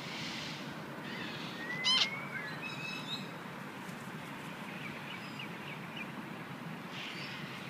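Birds calling over a steady outdoor background hum: about two seconds in, a short sharp call with a rising-and-falling whistle, the loudest sound, followed by a few brief chirps.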